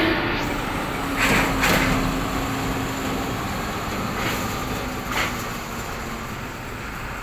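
Heavy box truck's diesel engine running at low speed as the truck pulls away, with a steady low drone and four brief bursts of noise; the sound slowly fades as the truck moves off.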